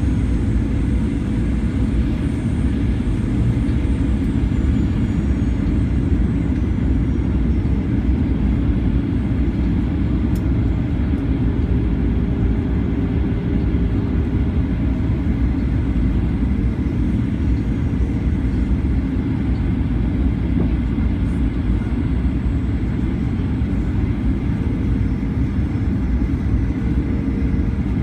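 Steady cabin noise of a Boeing 737-900ER descending on approach to land: the CFM56-7B engines and the rush of air past the fuselage, heard from a window seat over the wing, heavy in the low end with faint steady hums above it.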